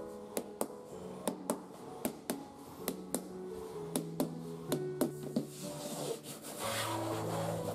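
A small hammer tapping a thin wooden filler strip into a floor groove: about a dozen light taps, often in pairs, over the first five seconds. Near the end a hand rubs and presses along the wood. Soft piano music plays underneath.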